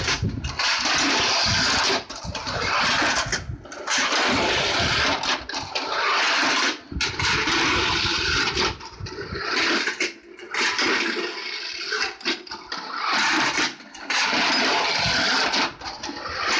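Small tin vehicles of a clockwork Technofix Albula 329 tin-plate toy running along its metal track with a loud, continuous rattling rush, broken by short pauses every second or two.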